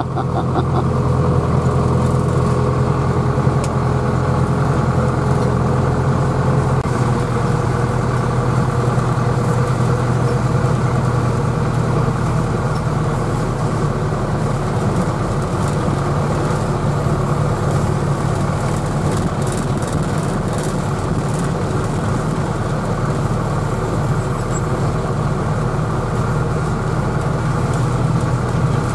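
Tractor engine running steadily as the tractor drives along, heard from inside its cab; its note shifts slightly about seven seconds in.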